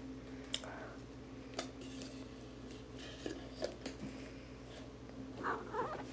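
Faint clicks and rustles of a plastic cup and straw being handled while someone sips a shake, over a steady low hum.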